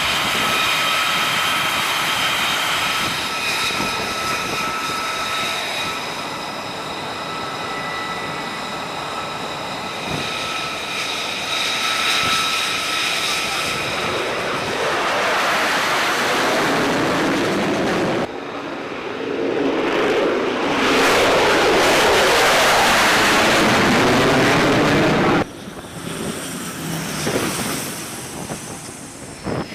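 Jet aircraft engines: a steady high whine made of several tones, giving way about halfway through to loud rushing jet noise, broken by abrupt cuts between shots.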